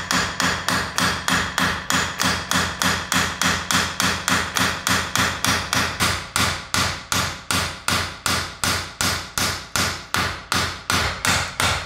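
Steady hammer blows, about three or four a second in an even rhythm, driving the hub carrier onto the body of a Bilstein B8 shock absorber.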